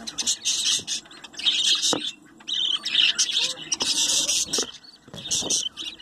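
Budgerigars chattering: a rapid run of overlapping high-pitched chirps and warbles, broken by a couple of short pauses.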